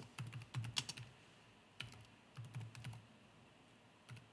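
Computer keyboard keys clicking faintly as a terminal command is typed, in short runs of keystrokes with pauses between them.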